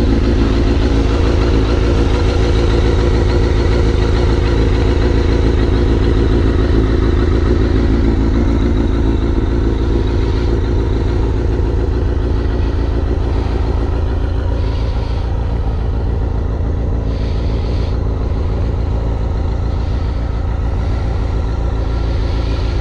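2001 Suzuki GSX-R1000 K1 inline-four engine with a Yoshimura muffler, idling steadily soon after a cold start while the engine is still cold.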